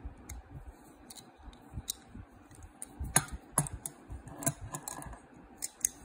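Handmade Filipino balisong (butterfly knife) being opened by hand: irregular sharp metallic clicks and clacks as the latch is worked and the brass-capped handles swing apart from the blade, the loudest clacks coming near the middle.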